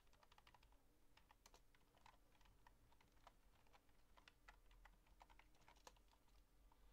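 Faint typing on a computer keyboard: an irregular run of soft key clicks.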